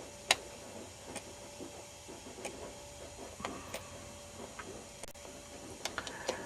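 A few light, scattered clicks and taps over a faint steady hum.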